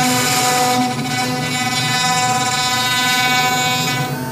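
CNC router spindle running with its end mill cutting into a wooden board: a steady whine over the rasp of the cut.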